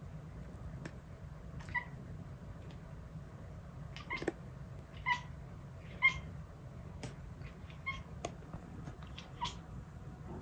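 A kitten chattering: about six short, high, squeaky chirps with small clicks between them, spread out over several seconds. It is a young cat's half-formed attempt at the chatter cats make when watching prey.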